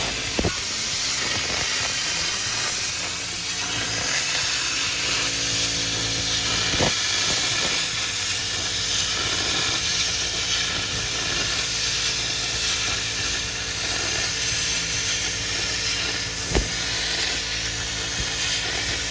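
Plasma cutter cutting 16 gauge steel plate: a steady, loud hiss of the air-plasma jet with a low machine hum underneath. A few brief sharp clicks break in, about half a second in, around seven seconds in and near the end.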